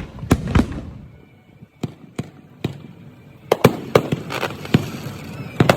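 Firecrackers going off in a series of sharp bangs at irregular intervals, a few in the first half, then coming faster from about halfway through.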